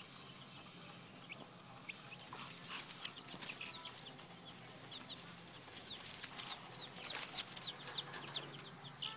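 Young chicks peeping: short, high-pitched peeps, scattered at first and coming several a second from about halfway on, with a few clicks and rustles mixed in.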